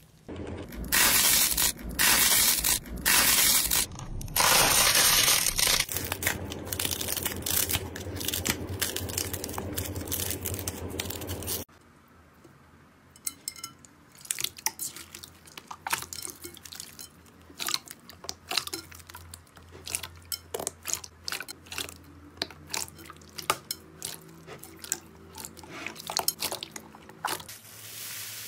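Hands squeezing and kneading floam slime full of foam beads, giving a loud, dense crunching crackle. After about 12 s it switches to hands working clear slime: quieter, with scattered wet clicks and pops.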